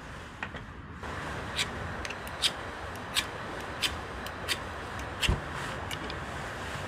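Short sharp metal clicks and taps, roughly every 0.7 s, as the parts of a compact camping stove are handled and fitted together. A steady hiss runs underneath them.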